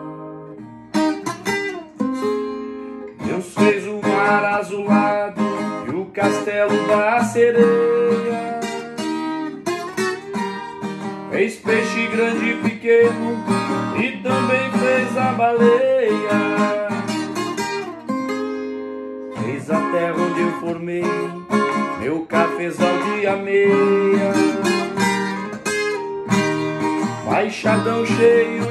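Solo nylon-string classical guitar played as an instrumental passage, mixing picked melody notes with strummed chords. About two-thirds of the way in a chord is left ringing briefly before the playing picks up again.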